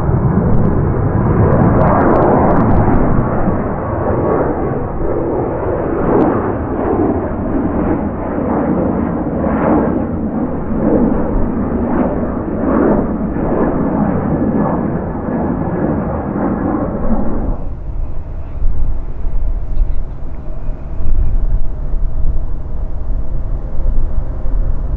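Jet engine noise from a Boeing 737-800's CFM56-7B turbofans, a loud, rough rumble. It cuts off suddenly about three-quarters of the way through, giving way to a quieter low rumble with gusty low-end noise.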